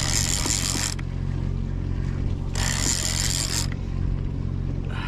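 A boat's engine runs with a steady low hum. Three scraping, zipper-like rushes of about a second each come roughly two and a half seconds apart.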